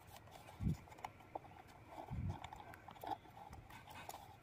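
Faint handling noise as a screwdriver and fingers work at a loudspeaker's mounting bolt in a wooden cabinet: two dull thumps, one under a second in and one about two seconds in, among small clicks and scrapes.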